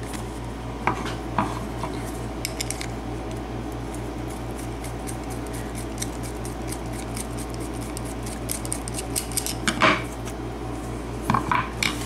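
Small metal clicks and clinks from an American Series 100 padlock being handled and a slim screwdriver worked against its body. There are sharper clinks about a second in and near the end, all over a steady low hum.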